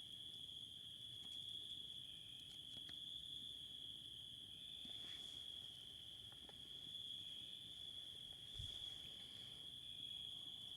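A cricket trilling steadily at one high pitch without a break, with a few faint, scattered crackles of a campfire and one soft low thump near the end.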